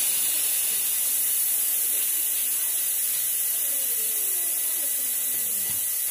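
Air hissing out through the valve stem of a motorcycle's tubeless tire as it is deflated: a steady high hiss.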